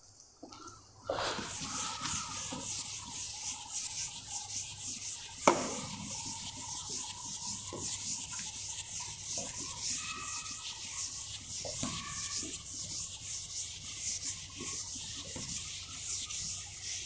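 A blackboard duster rubbing across a chalkboard in repeated wiping strokes, erasing chalk writing, with a single sharp knock about five seconds in.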